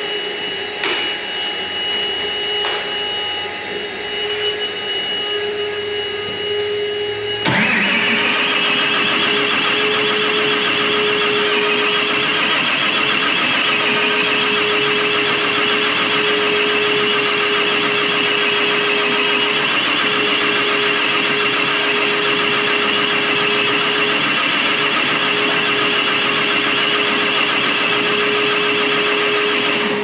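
A machine running steadily with a high whine. About seven and a half seconds in it gets sharply louder and the whine sweeps up to a higher held pitch, then stays steady.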